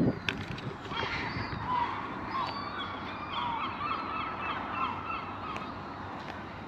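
A flock of birds calling, many short calls overlapping, over steady outdoor background noise.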